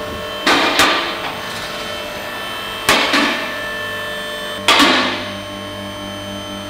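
Automotech two-post vehicle lift raising a vehicle: its electric hydraulic pump motor hums steadily while the lift's safety latches clank loudly over their stops, twice close together near the start, then about three seconds in and again near five seconds.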